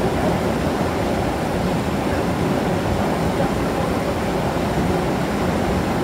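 Waterfall rushing, a steady, even roar of falling water.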